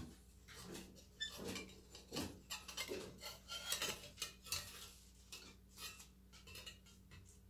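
Faint, irregular metallic clinks and rattles from a vintage Delco desk fan's metal blades knocking against its wire guard as the blades are worked out through it.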